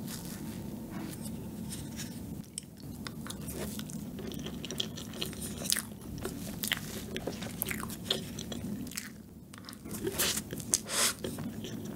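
Close-miked eating sounds: a wooden spoon scoops into a soft strawberry-yogurt cream cake, then come wet mouth clicks and chewing as a spoonful is eaten. The mouth sounds are loudest about ten seconds in.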